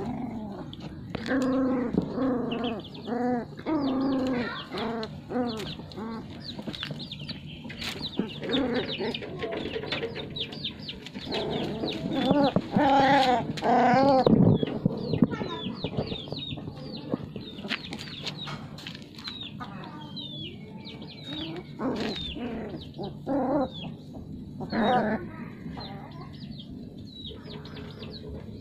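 Animal calls: puppies whining and yipping as they play-fight, mixed with a hen clucking. The calls come in quick bunches and are loudest about halfway through.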